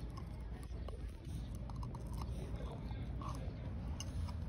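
Pit bull puppy gnawing on a chew bone: irregular small clicks and crunches of teeth scraping and biting the bone.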